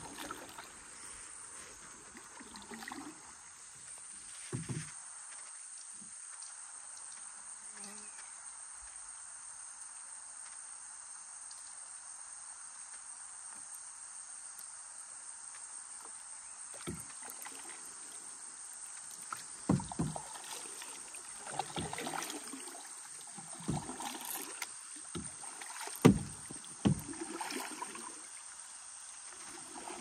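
Kayak paddles splashing and knocking against the hull, sparse at first and coming in a string in the second half, the loudest knock about 26 seconds in, over a steady high-pitched drone of rainforest insects.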